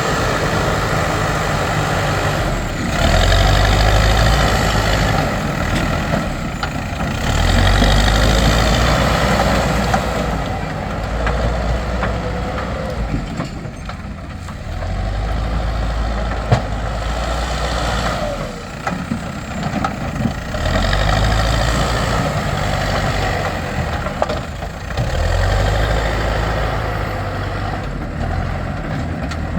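Backhoe loader's diesel engine working, revving up for a few seconds at a time, about every four to five seconds, as it digs and loads mud, then dropping back toward idle between swells.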